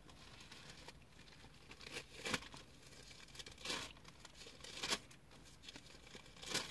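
Thin Bible pages being leafed through: several soft, short paper rustles a second or so apart, while Romans 8 is being looked up.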